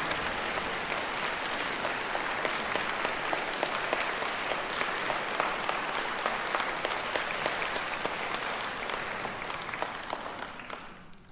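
Audience applauding: a dense clatter of many hands clapping, which dies away near the end.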